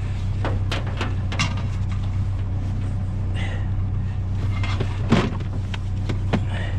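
Scattered clicks and clunks of scrap metal and cords being handled, over a steady low hum.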